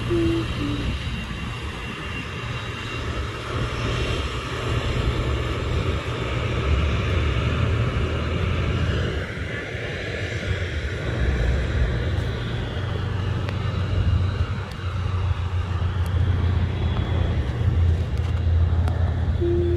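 Business jet turbofan engines running while the jet taxis on the ramp: a steady high whine over a low rumble.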